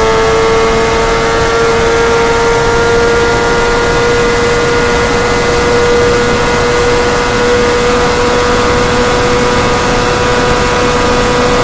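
Motorcycle engine running hard at high, steady revs, its pitch creeping slowly upward as the bike gathers speed, over a steady rush of wind and road noise.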